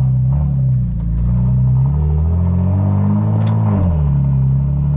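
Tuned 700-horsepower BMW M4's twin-turbo inline-six pulling under throttle. Its pitch climbs steadily for a few seconds, drops sharply a little before the end, then holds steady at a lower note.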